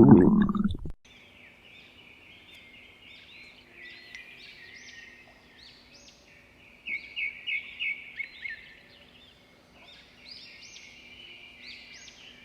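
A stomach growl that cuts off abruptly about a second in, then birds chirping and singing over a faint steady hum, with a louder run of quick notes near the middle.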